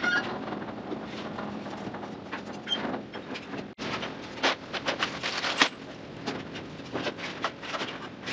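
Clicks, knocks and scraping of a sheet-metal ceiling panel being raised on a drywall lift and worked up into place by hand; the knocks come sharper and more often in the second half.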